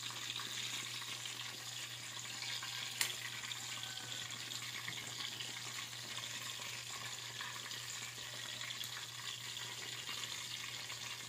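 Chicken necks deep-frying in a wok of hot oil, a steady sizzle as they start to brown. A single sharp click about three seconds in.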